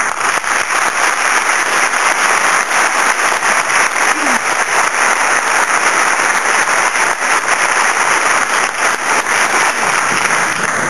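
Audience applauding: dense, steady clapping that starts at once and dies away near the end.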